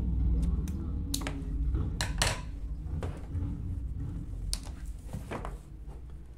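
Scissors snipping through a strip of white tape: a few sharp snips and clicks in the first couple of seconds, then lighter scattered clicks and rubs as the tape is handled and pressed to the wall, over a low background rumble.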